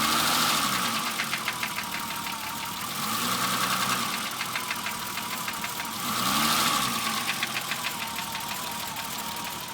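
BMW E30 engine blipped three times, about three seconds apart, settling back to idle between blips. A rapid, regular knock or tap runs through it. The owner cannot tell whether it is rod knock, piston slap or bearings.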